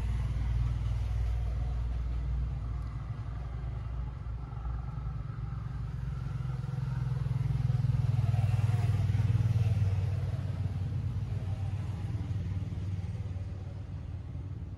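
Low, steady engine rumble that grows louder about seven seconds in and fades again after about ten seconds.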